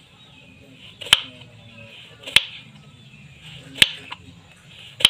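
Kitchen knife slicing through peeled angleng bananas and knocking on a wooden cutting board: four sharp knocks a little over a second apart, each after a soft cutting sound.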